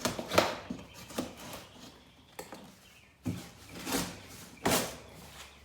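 A large cardboard shipping box being handled and shifted around: a series of separate knocks, bumps and scuffs, about six in all.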